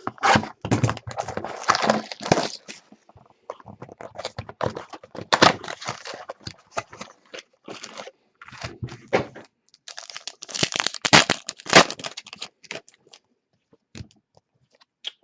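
Trading card packs being opened and handled close to the microphone: foil wrappers crinkling and tearing in irregular bursts with short pauses.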